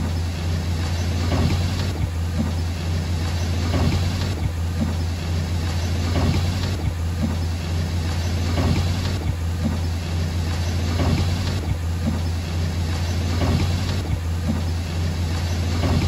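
Heavy bulldozer's diesel engine running steadily with a deep hum, and a swelling sound that repeats about every two and a half seconds.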